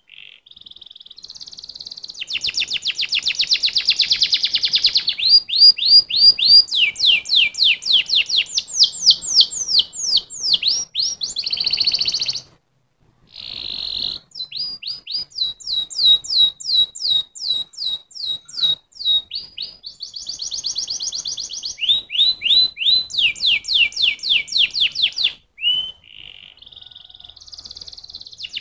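Domestic canary singing a long, fast song of rolling trills and rapidly repeated sweeping notes, broken by a brief pause about halfway through and another near the end.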